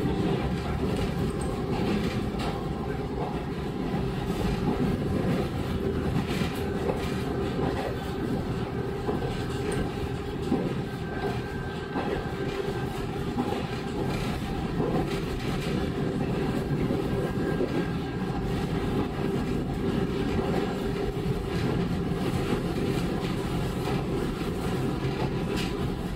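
Interior running sound of a KiHa 40 series diesel railcar on the move: a steady diesel engine hum mixed with wheel-on-rail noise, with occasional clicks from the track.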